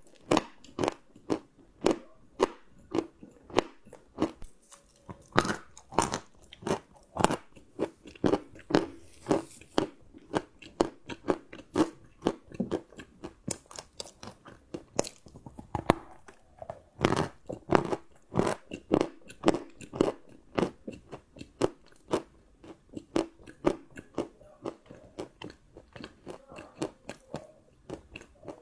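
Close-up chewing of crunchy chocolate: a steady run of sharp crunches and crackles, about two to three bites a second.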